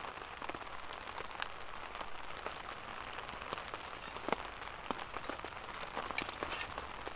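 Steady rain falling on a tarp shelter overhead: an even hiss with many scattered, irregular drop taps.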